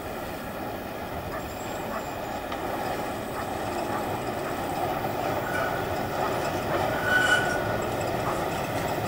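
PKP SM42 diesel locomotive and its coaches running past, the engine and rolling noise growing steadily louder as the train approaches, with a brief high squeal about seven seconds in.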